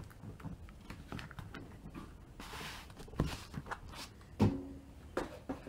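Handling noise from a hand-held stack of trading cards: faint rustles and small clicks of card stock against fingers, with a soft hiss near the middle and a sharper tap about four and a half seconds in.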